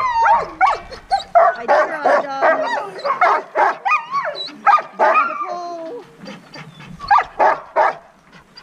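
A yard full of sled dogs barking, yipping and whining all at once, with many cries sliding up and down in pitch. This is the excited clamour of dogs wound up and eager to run before a sled outing. The chorus thins out after about six seconds, then a few louder barks break through near the end.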